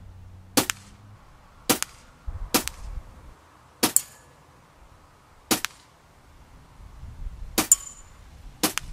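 Crosman 760 Pumpmaster air rifle shooting BBs: about seven sharp, separate shot cracks at uneven intervals, two of them followed by a short high metallic ring.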